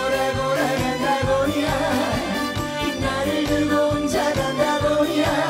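Trot song performed live: a man's voice sings into a microphone over backing music with a steady beat.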